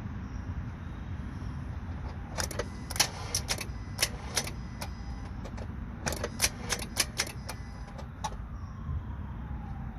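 Honda Civic's starter clicking without turning the engine over: a string of sharp, irregular clicks in two clusters as the key is held to start. The battery is too dead to crank the engine, drained by a failed alternator.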